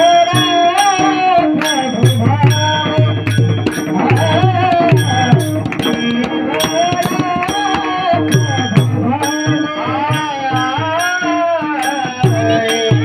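Varkari kirtan singing: a maharaj's voice singing a devotional melody over a held drone, with a drum and small hand cymbals (taal) keeping a steady beat.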